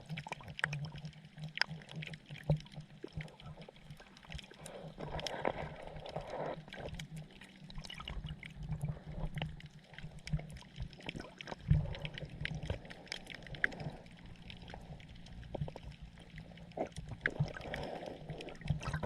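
Underwater sound of sergeant major damselfish making low pulsed sounds in quick runs, over water noise and many scattered sharp clicks.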